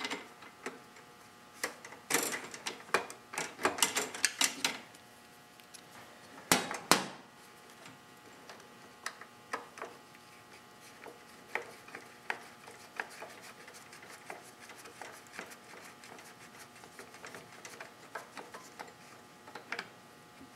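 Ratchet wrench clicking in short irregular runs as the bolts holding the air filter assembly on a Tecumseh lawn mower engine are loosened, with a couple of louder knocks about six and a half seconds in.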